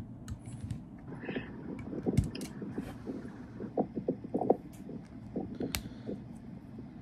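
Plastic Lego pieces being handled and pressed together: irregular small clicks and taps, with a few duller knocks on the tabletop.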